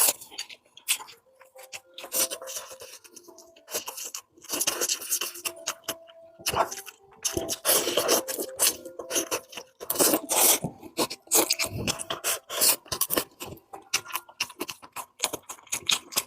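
Close-miked eating sounds from a bowl of spicy pork rice: a utensil scraping and clicking against the bowl in a run of short, irregular scrapes and clicks.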